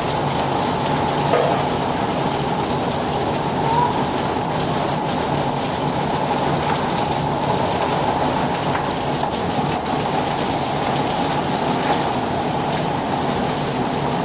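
Heavy rain pouring down, a steady dense rush of water with no letup.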